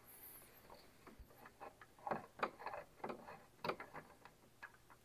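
Faint, irregular metallic clicks as a socket extension with a universal joint is turned by hand, backing out a small bolt.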